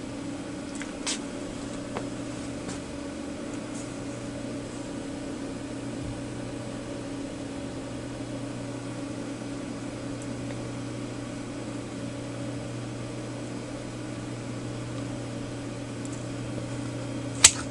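Steady low machine hum, with a couple of faint clicks in the first two seconds and one sharp click near the end.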